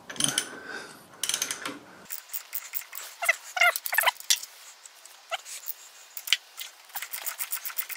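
Milling machine head being wound round on its nod screw to change its tilt: a rough metallic grinding clatter that stops abruptly about two seconds in. It is followed by a few short, high, wavering squeaks and scattered light clicks, with a quick run of clicks near the end.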